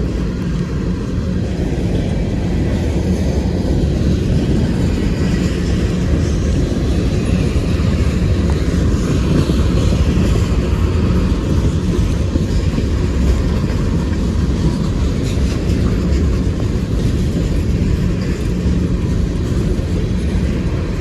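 CSX freight train rolling slowly past, a steady rumble of railcars on the track, mixed with the hiss of heavy rain.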